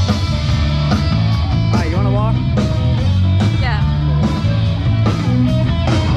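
Background music: a guitar rock track with a steady bass line and a regular beat.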